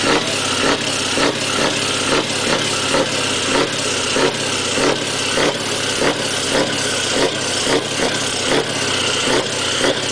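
Scania V8 diesel truck engine idling steadily, with a regular pulse about twice a second.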